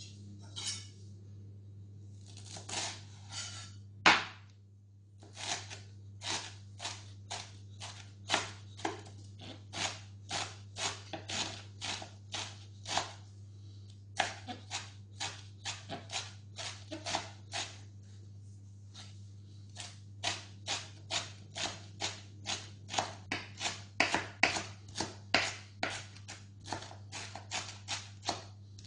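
Kitchen knife chopping fresh parsley on a wooden cutting board: a steady run of knife strikes, about two to three a second, with a brief pause a little past the middle. One sharper knock about four seconds in.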